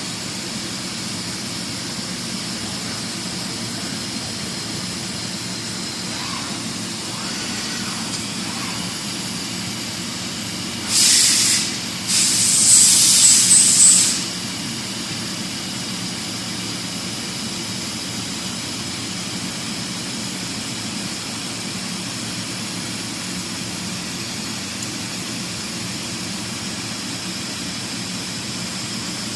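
Fermat WFC 10 CNC horizontal boring mill running with a steady machine hum. About eleven seconds in comes a short loud hiss, then a longer one of about two seconds.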